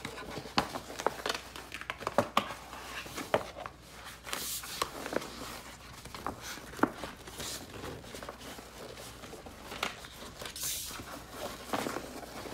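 Crinkling and rustling of a stiff plastic backdrop sheet and the silver reflective lining of a photo tent being handled, with scattered light taps and clicks. There are two longer swishes, about four seconds in and near the end.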